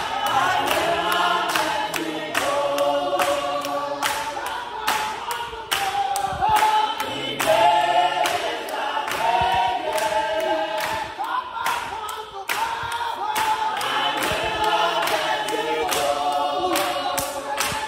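Congregation singing together in a live, loud group with steady rhythmic hand-clapping on the beat.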